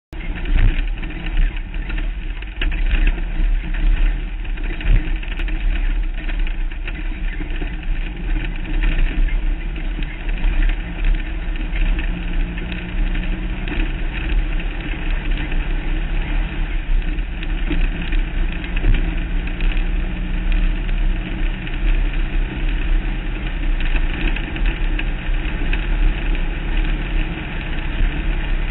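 Off-road race vehicle driving fast on a dirt track, heard from a camera mounted on its front: the engine runs hard with its pitch shifting, over a loud, steady rumble and rushing road and wind noise, with a few sharp knocks.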